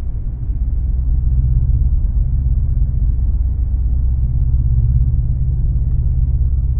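Off-road race vehicle's engine running hard at a steady pitch: a heavy, muffled low rumble with little treble, growing slightly louder about a second in.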